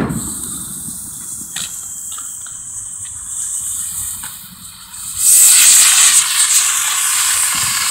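Friendship Pagoda firework: a quiet fizzing hiss with a few sharp pops, then about five seconds in it starts spraying sparks with a loud, steady hiss.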